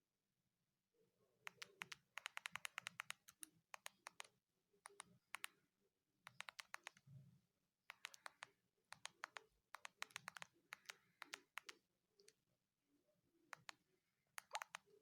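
Keypad clicks from an iTel it5615 feature phone as its keys are pressed: rapid bursts of sharp clicks, several in a row, separated by short pauses.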